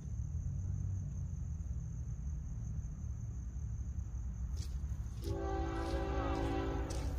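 Diesel locomotive horn of a Florida East Coast Railway train sounding one long chord of several tones, starting about five seconds in, over a steady low rumble.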